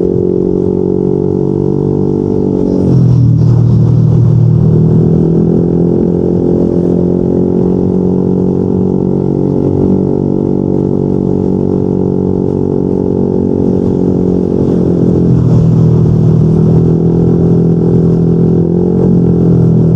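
Yamaha NMAX 155 scooter's single-cylinder engine running through a Yoshimura RS2 aftermarket exhaust while riding, a deep steady drone. The note dips around three seconds in, picks up again, and dips once more around fifteen seconds in as the throttle eases.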